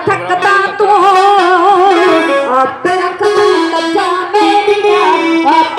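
Loud music: a melody line that wavers with vibrato and slides between notes over sustained accompaniment.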